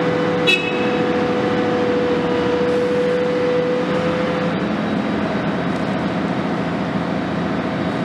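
Volvo EC 360 long-front demolition excavator's diesel engine running steadily under load, with a steady hydraulic whine while the long arm moves that stops about four and a half seconds in. A single sharp metallic clank with a brief ring comes about half a second in.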